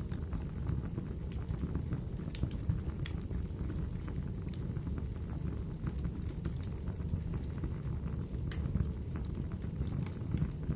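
Fireplace fire crackling: a steady low hiss of flames with scattered sharp pops, about one every second or two.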